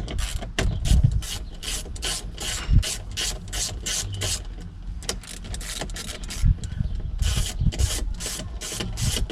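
A 1/4-inch drive ratchet clicking rapidly as 10mm bolts are backed out. It goes about four to five clicks a second, in three runs with short pauses between them.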